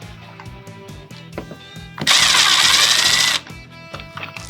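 A cordless drill or impact driver runs in one burst of about a second and a half, starting about two seconds in, with a whine that rises and then falls, as a faceplate screw is driven out. Techno background music with a steady beat plays underneath.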